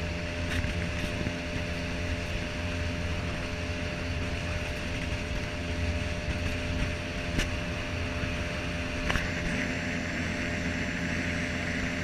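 Boat motor running at a steady speed under way, with a rushing wash of wind and water and a few brief sharp ticks.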